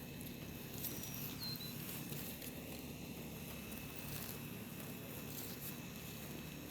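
Quiet background noise with a faint, steady high-pitched whine and a few soft, faint clicks or taps.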